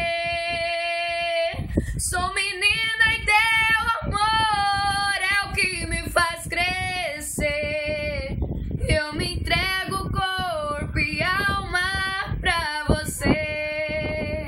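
A young woman singing unaccompanied: one long held note for about the first second and a half, then a string of short phrases sliding up and down in pitch.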